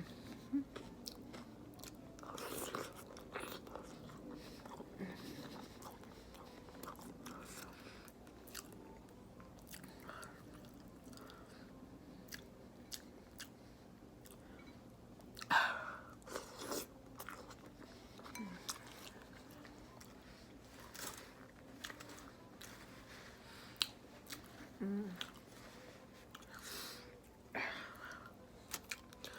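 A person chewing and eating a seafood boil of shrimp, potatoes, corn and boiled egg in sauce: steady wet chewing with many small mouth clicks, and a few louder bites, the loudest about halfway through.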